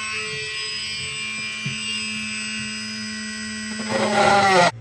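Homemade drill built from a brushless outrunner motor, running with a steady high-pitched whine. Near the end it gets louder and its pitch sags as the bit bores into the wooden plank, then it stops abruptly.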